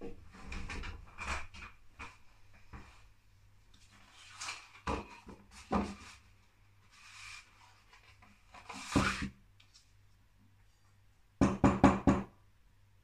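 Paper and a small ceramic pouring cup being handled on a wooden table: rustles and scattered light knocks. Near the end comes a quick run of about six sharp knocks, the loudest part, as the cup of paint is turned upside down onto the paper.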